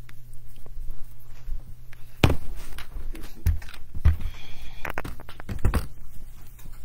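Irregular knocks and thumps from a handheld phone being moved around, with a low steady hum that stops about two seconds in.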